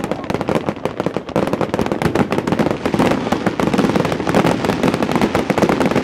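Fireworks display: a dense, rapid run of crackling bangs from many shells bursting at once. It grows louder about a second and a half in.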